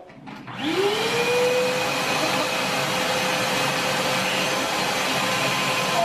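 A WAP wet-and-dry drum vacuum cleaner switched on about half a second in: its motor whine rises quickly and settles into a steady, loud run with rushing air.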